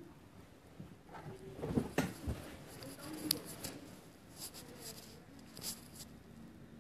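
Handling noise from a handheld phone: soft rustling with a few small clicks and knocks, the sharpest about two and three seconds in.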